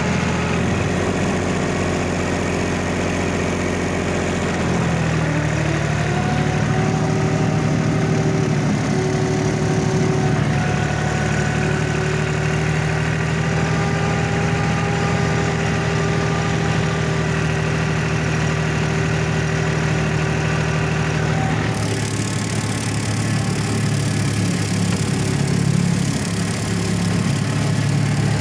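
Yanmar FX24D compact tractor's diesel engine running steadily under load, driving a PTO flail mulcher through the grass. The engine note shifts about five seconds in and again near the end, where a hiss gets stronger.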